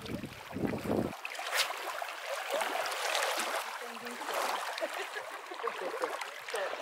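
Small waves lapping and splashing at a rocky shoreline, with water swishing around legs wading in the shallows, and a single sharp click about a second and a half in.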